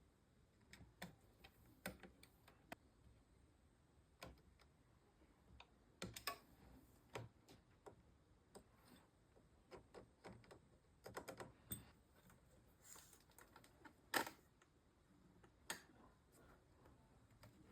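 Irregular light clicks and taps of small computer parts being handled and fitted, with a quick run of clicks and one sharper click later on.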